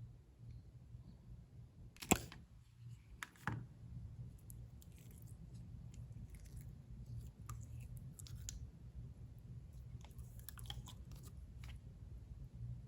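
Handling of a slime toy and its plastic pieces: a few sharp plastic clicks about two to three and a half seconds in, the first the loudest, then scattered soft crackles and taps over a steady low hum.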